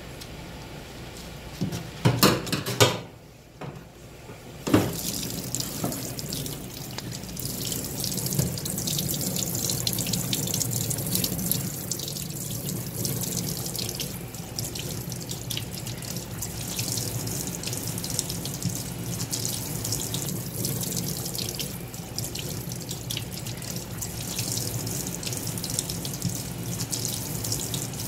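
A few loud knocks and clatters in a stainless steel sink about two to five seconds in, then a tap running steadily into the sink, the water splashing over hands rinsing spoon worms.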